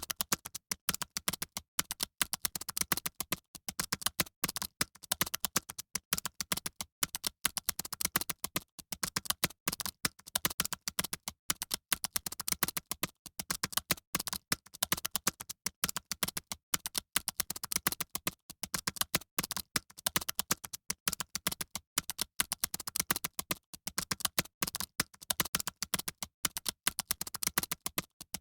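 Fast computer keyboard typing: a dense, unbroken stream of key clicks, many strokes a second, as in a typing exam.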